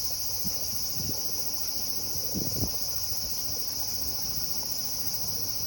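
Steady, unbroken shrill chorus of insects, a high continuous buzz, with a few faint low knocks about halfway through.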